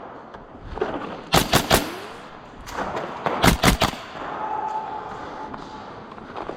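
Airsoft gun firing two short bursts of about four shots each, roughly two seconds apart, sharp rapid pops in quick succession.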